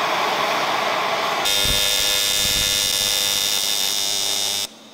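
A handheld gas torch flame hisses as it preheats a thick aluminum plate. About one and a half seconds in, this gives way to an AC TIG welding arc buzzing steadily on the aluminum, which cuts off suddenly near the end.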